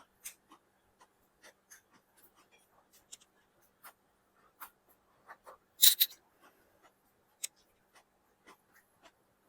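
Close-up eating sounds of someone eating chicken biryani: irregular small clicks and mouth noises from chewing, with two louder sharp sounds close together about six seconds in.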